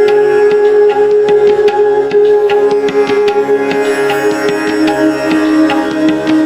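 Background instrumental music: a steady held drone under a quick run of sharp plucked and struck notes.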